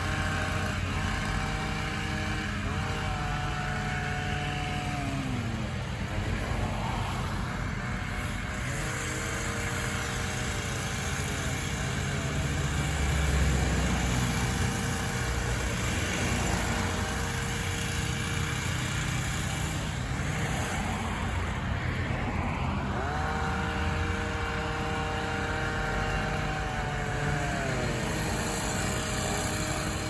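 Engines running at a tree-trimming job: a steady low hum of a bucket truck engine, under a higher-pitched engine that holds its revs for a few seconds and then drops back, once near the start, again around ten seconds in, and again near the end.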